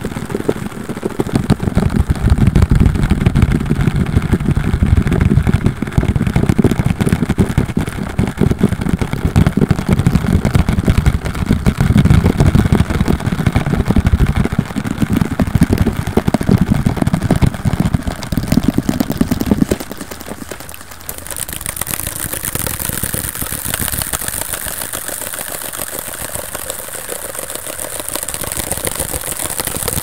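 Very fast, sped-up fingertip tapping and scratching on a cardboard box, so dense it blurs into a steady rumbling buzz. About 20 s in it drops in level and turns lighter and hissier as the tapping moves to a different object.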